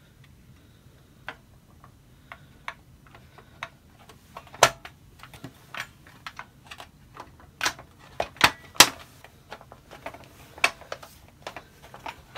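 Plastic blaster shell halves being pressed and fitted together by hand: a run of irregular sharp clicks and taps, the loudest few between about four and nine seconds in.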